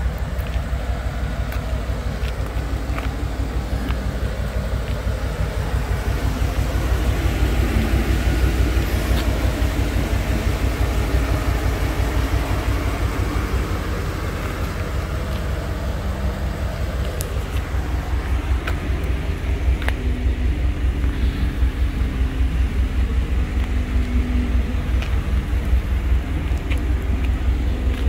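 The pickup's 350 cubic-inch (5.7 L) throttle-body fuel-injected V8 idling steadily with an even low rumble.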